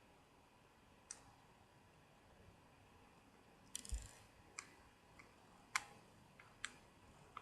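Faint, scattered sharp clicks and taps of a small screwdriver working tiny screws out of a phone's back frame, about seven in all at irregular spacing, with a dull thump about four seconds in.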